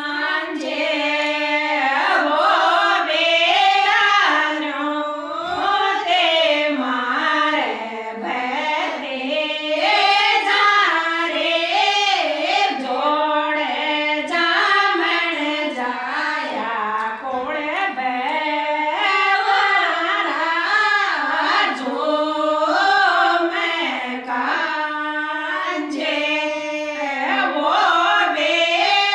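A group of women singing a Rajasthani folk wedding song in unison, with a gliding, ornamented melody and no drum or instrument.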